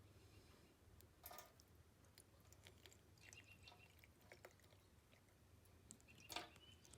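Near silence: faint room tone with a low hum and a few small, faint handling clicks, the clearest about a second in and again near the end.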